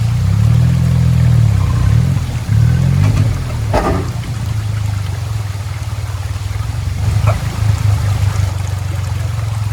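Suzuki Jimny JA11's small three-cylinder turbo engine revving up and down in several swells, a sharp knock about four seconds in, then running more steadily at lower revs, with water trickling underneath.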